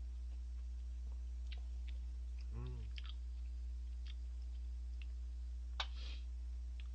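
A man chewing a mouthful of thick instant jjajang ramen noodles, with faint wet mouth clicks, over a steady electrical hum. A brief closed-mouth 'mm' hum comes about two and a half seconds in, and a sharper click near the end.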